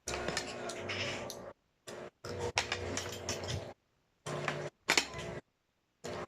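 Cutlery clinking and scraping on a plate during a meal, in choppy stretches that cut off abruptly to dead silence several times.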